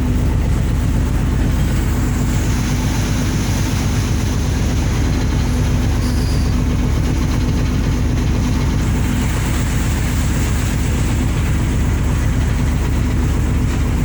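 A ship's engine running steadily at constant speed: a loud, even drone with a fast, regular pulse of engine firing and a steady low hum.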